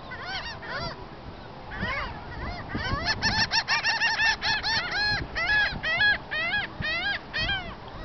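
Gull calling: short, arched yelping calls that rise and fall in pitch, a few scattered at first, then a fast run of several a second from about three seconds in.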